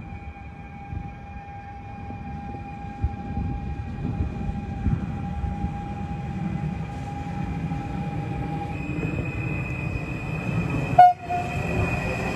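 Stadler FLIRT electric multiple unit pulling into the platform and slowing to a stop, with a low rumble of wheels on rail under the steady whine of its electric traction drive. The whine shifts higher in pitch about nine seconds in, and a single short, sharp bang sounds near the end.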